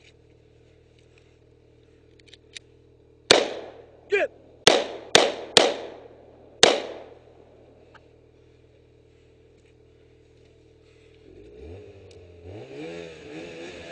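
Glock pistol fired six times in about three and a half seconds, unevenly spaced sharp shots, each with a short ring after it. A snowmobile engine idles underneath and revs up near the end.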